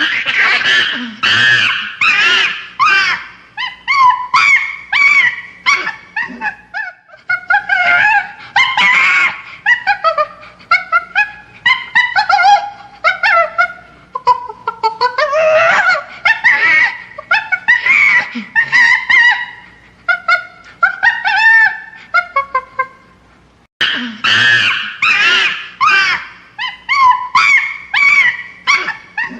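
Chimpanzee screaming: a rapid series of high calls, several a second, each rising and falling in pitch, with a short break about five seconds before the end.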